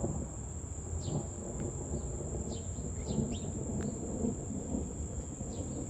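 Low, steady rumble of distant thunder under a constant high-pitched insect drone, with a few short bird chirps scattered through.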